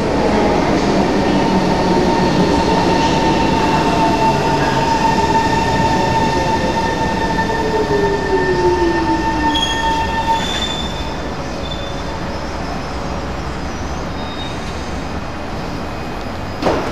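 C151 MRT train pulling into the platform and braking to a stop. A falling motor whine drops steadily in pitch over about nine seconds under a steady high whine. That whine cuts off about ten seconds in as the train halts, leaving a steady hum. A short sharp clunk comes near the end.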